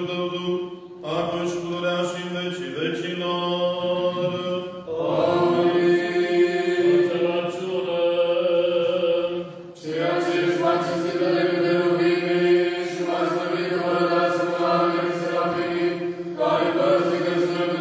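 Slow Orthodox liturgical chanting, sung on long held notes in phrases that begin again about 1, 5, 10 and 16 seconds in.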